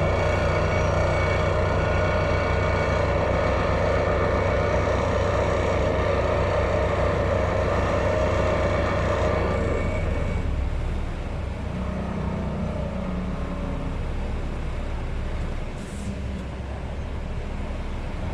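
Sheet pile driving machinery running steadily with a deep, continuous engine-and-vibration hum. About ten seconds in it drops to a lower, quieter run.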